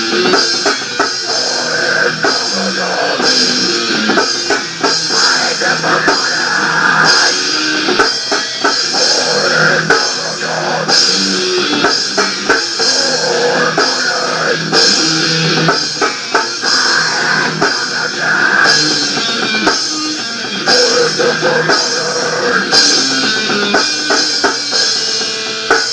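Rock band demo recording in an instrumental passage: guitar and drum kit with regular cymbal hits and no vocals. The recording sounds thin, with almost no deep bass.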